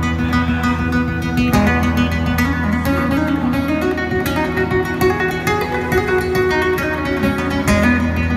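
Live instrumental progressive metal: two electric guitars play quick, clean-toned plucked lines over steady low notes, with frequent drum strikes.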